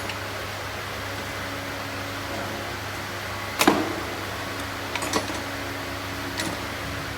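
A few sharp clicks and knocks of hand tools and engine parts being handled during an engine rebuild, the loudest about halfway through, over a steady hum.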